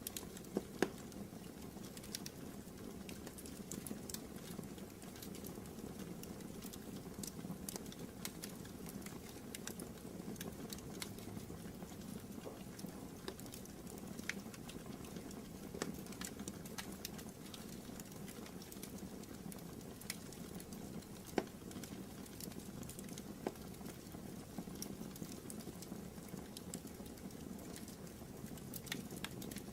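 Wood fire burning in a fireplace: a steady low rumble of flames with frequent small crackles and pops scattered throughout, one sharper pop about 21 seconds in.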